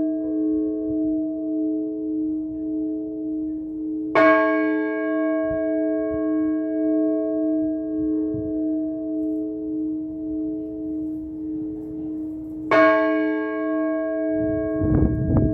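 A large church bell tolling in slow single strokes, struck twice about eight seconds apart, each stroke clanging and then humming on as a long, steady ring. A loud low rumbling noise comes in near the end.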